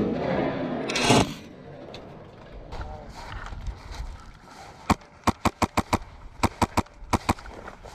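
A loud rustling rush in the first second, then about a dozen sharp airsoft gun shots fired in quick runs over the last three seconds.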